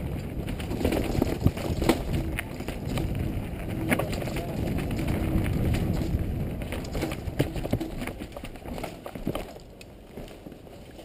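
Downhill mountain bike rolling fast over a dirt forest trail: tyre and wind rumble with frequent sharp knocks and rattles from the bike over roots and bumps. It gets quieter in the last few seconds as the bike slows.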